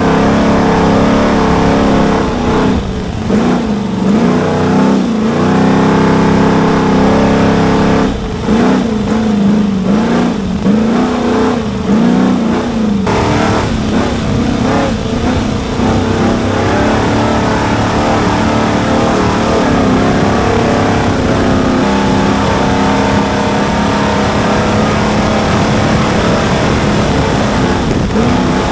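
Off-road race truck's engine heard from a camera mounted on the truck, revving up and down in quick repeated rises and falls for the first dozen seconds or so, then running more steadily at speed under a constant rushing noise.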